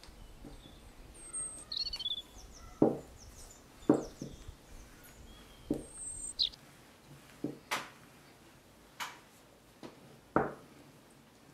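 Birdsong sound effect: high chirps and quick gliding calls, over a string of short, irregular knocks, the loudest about three and four seconds in and near the end.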